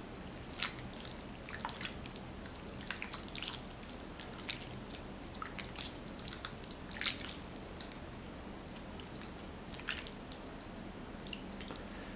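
Metal fork and wooden spoon stirring and lifting noodles in a thick chili-sauce broth in a ceramic bowl: irregular wet squelches and light clicks.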